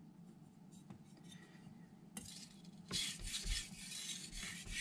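Carbon steel knife blade stroked across a 3000-grit vitrified whetstone, a gritty scraping in repeated strokes that starts about two seconds in and grows stronger from about three seconds, after a faint start with a few light clicks.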